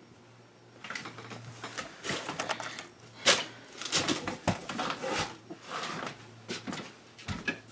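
Irregular run of quick clicks and taps over a faint steady low hum.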